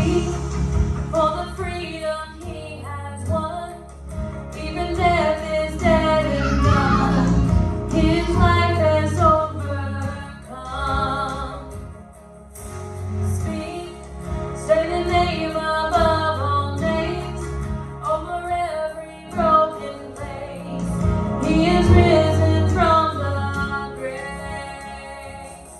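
Worship song in a church service: a woman singing a melody over instrumental accompaniment with a steady bass.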